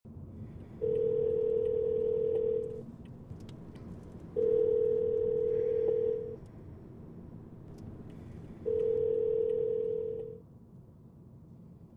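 Telephone ringback tone as an outgoing call rings out: three steady rings of about two seconds each, with gaps of about two seconds, over the low hum of the moving car's cabin.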